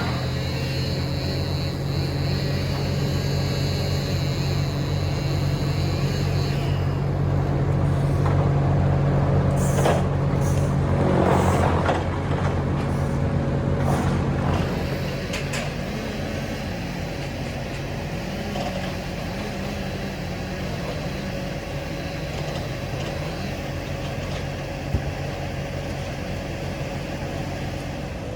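A large engine of heavy machinery running steadily, with a high whine that stops about seven seconds in and a few seconds of rough crashing or grinding noise in the middle.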